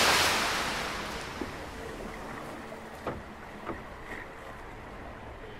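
Sea water surging and washing, loudest at the start and fading over about two seconds into a quieter, steady wash, with a couple of faint clicks.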